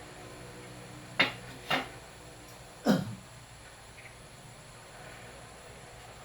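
Three short clacks, the second about half a second after the first and the third about a second later, the last with a brief falling ring, over a steady low hum.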